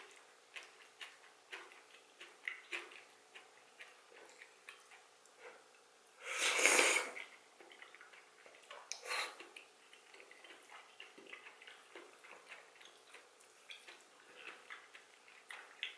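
Close-up mouth sounds of a person eating soup greens: steady wet chewing clicks, with a loud slurp about six seconds in as broth-soaked cabbage leaves are sucked in, and a shorter slurp about three seconds later.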